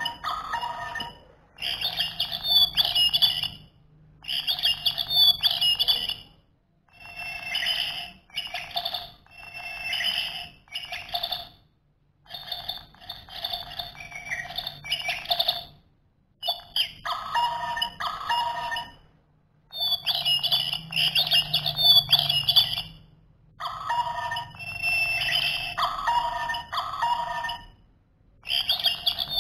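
Electronic singing toy bird in a plastic cage, chirping and tweeting recorded birdsong through its small speaker. The chirps come in phrases of one to three seconds with short pauses between, and the same patterns recur.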